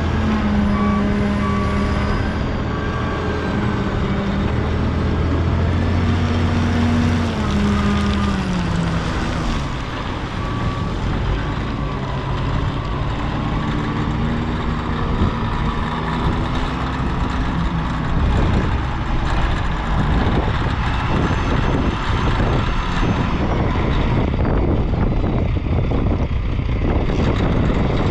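A heavy-equipment engine running under load, steady at first, then dropping in pitch about eight seconds in and rising and falling after that. From the middle onward it is joined by repeated knocks and rattles of the machine working.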